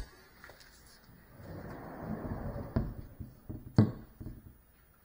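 Faint rustling with two sharp knocks, about three and four seconds in.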